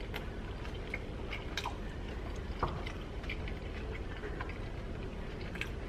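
A man chewing a mouthful of burrito, with scattered soft wet clicks and smacks of the mouth over a steady low background hum.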